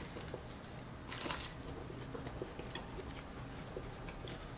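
Close-up mouth sounds of biting into a Popeyes fried chicken sandwich and chewing it: a crunchy bite about a second in, then scattered small wet clicks and crackles of chewing.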